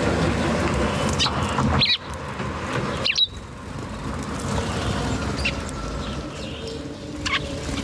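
Wild birds chirping: a handful of short, sharp calls spaced a second or two apart, over a low rumble that drops off suddenly about two seconds in and again about three seconds in.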